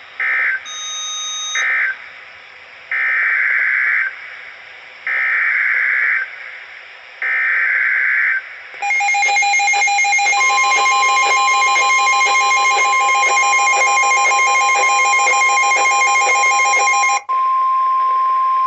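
Emergency Alert System tones marking the end of one alert and the start of the next. First come two short end-of-message data bursts. Then come three one-second bursts of rapid warbling data, the header of the new alert. About nine seconds in, the steady two-tone EAS attention signal begins; the single 1050 Hz National Weather Service tone joins it about a second and a half later and sounds on alone after the two-tone stops near the end.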